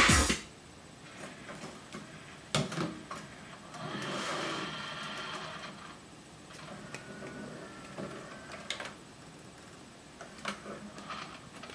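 Music cuts off at the start. Then the mechanism of a JVC XL-MC222 200-disc CD changer runs: a knock, a motor whirring with a thin whine for about two seconds from four seconds in, a weaker whine a little later, and scattered clicks as the front door opens onto the carousel.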